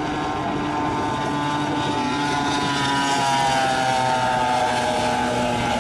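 Offshore racing powerboat engines running flat out, a loud drone over wake and wind noise. About halfway through, the engine pitch starts falling steadily as a boat passes close by.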